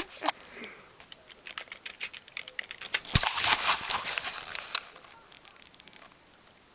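Rapid, irregular crackling and rustling clicks, like something being handled close to the microphone. They are densest about three seconds in, where there is a single dull thump, and they die away near the end.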